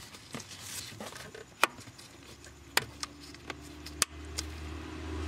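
Hands fitting plastic clips and the rubber steering column seal under a car's dash: rustling and handling noise with a few sharp clicks. A low steady hum comes in about two seconds in and gets louder near the end.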